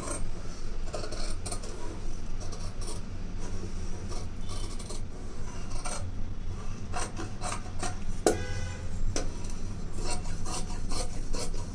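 Large tailoring shears cutting through cloth along a chalk line, the blades snipping again and again at an uneven pace with the fabric rustling and sliding on the table as the blouse's armhole curve is cut.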